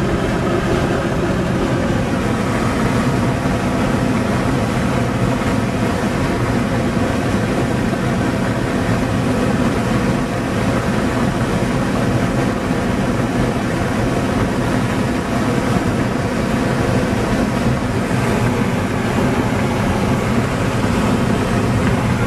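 Steady rush of wind and road noise inside a car driving at highway speed with a window rolled down, with a low engine and tyre hum beneath.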